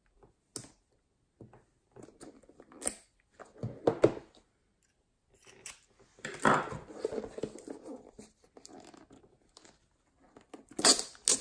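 Clear plastic wrapping cut with a craft knife and pulled off a package: scattered crackles and clicks at first, then a longer stretch of crinkling about six seconds in, and another burst of crinkling near the end.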